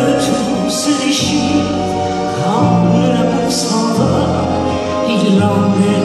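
Live French chanson: a woman singing into a microphone over accordion and band accompaniment, with a bass note that changes about once a second and a few light cymbal-like strikes.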